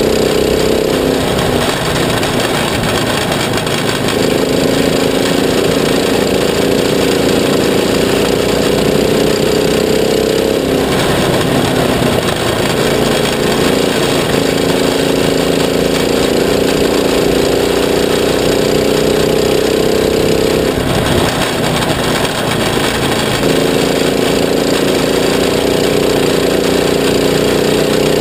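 A Stoxkart's engine running hard, heard from inside the cockpit over rough road and track noise. Its steady note drops away three times for about two seconds each, near the start, about eleven seconds in and about twenty-one seconds in, then comes back.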